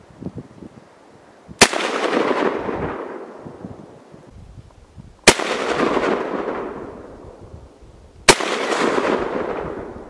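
Three single shots from an AKM Kalashnikov rifle (7.62×39 mm), a few seconds apart, each followed by a long echo that dies away over about two seconds.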